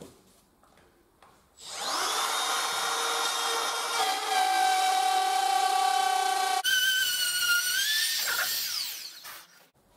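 Makita cordless trim router spinning up about one and a half seconds in and running with a high whine as it routes a shallow pass through a laminate floor board, its pitch shifting as it cuts, then spinning down near the end.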